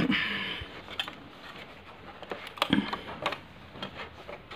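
Hands handling an open portable cassette recorder: a brief rustle at the start, then a few scattered clicks and knocks.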